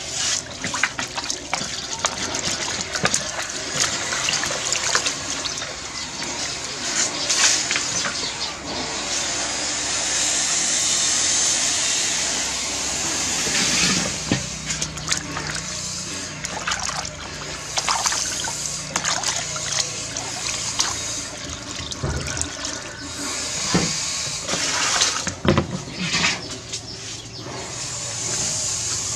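Water splashing and sloshing as a bunch of fresh coriander is swished and rinsed by hand in a basin of water, with many small splashes throughout.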